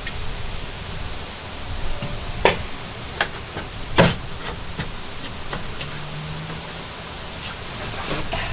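Handling noise of work at a shower pan with a caulk gun: a handful of sharp clicks and knocks, the loudest about two and a half and four seconds in, over a steady hiss.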